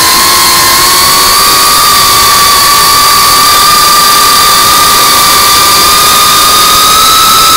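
FPV freestyle quadcopter's motors and propellers whining at a steady high pitch that slowly rises, over a steady hiss.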